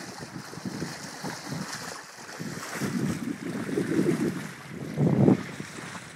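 Wind buffeting the microphone aboard a sailboat under sail, in uneven gusts, the strongest about five seconds in, with water washing along the hull underneath.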